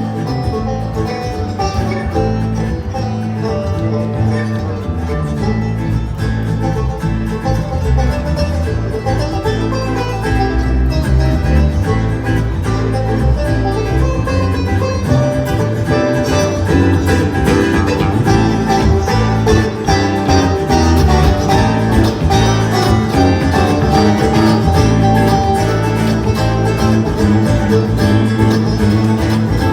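Live bluegrass band playing an instrumental passage, with banjo and guitar picking over a steady bass rhythm, growing a little louder near the end.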